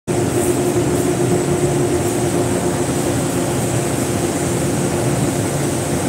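Steady drone of running plant machinery in a boiler house, a constant hum with a faint high whine.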